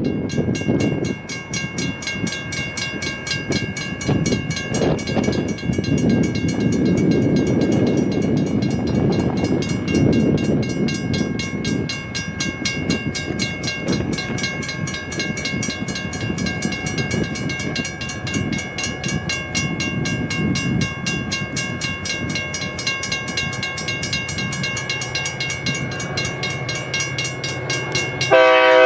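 Pere Marquette 1225, a Lima-built 2-8-4 Berkshire steam locomotive, and its train rumbling past, with a bell ringing rapidly and steadily. The locomotive's steam whistle starts to blow just before the end.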